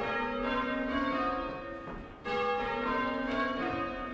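A ring of six church bells cast in 1720 by Abraham Rudhall II, rung full-circle in rounds. Each bell strikes in turn from the highest down to the deep tenor, row after row, with a short gap about two seconds in before the next row starts.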